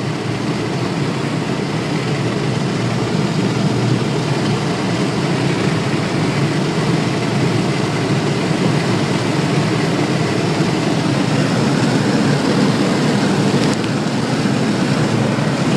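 Interior cabin noise of a Geo Prizm being driven flat out near 100 mph: a steady, loud rush of engine, wind and tyre noise that slowly grows louder as the car keeps accelerating.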